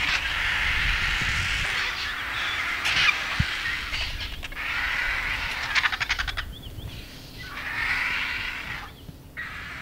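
A flock of vultures squabbling at a carcass, with harsh hissing and screeching calls. A rapid clatter comes about six seconds in, and the calls grow quieter in the second half.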